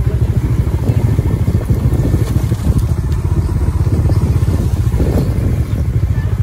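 Motorcycle engine running steadily under way, a fast, even low pulsing with no change in pace.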